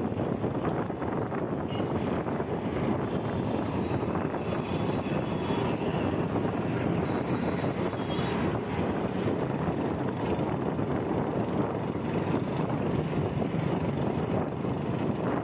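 Steady rush of wind and road noise on a camera mounted on a moving bicycle's handlebars, with street motor traffic mixed in.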